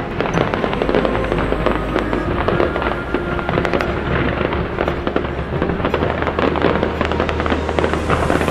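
Fireworks going off in dense, rapid crackling and popping, starting abruptly and continuing without a break, with music playing underneath.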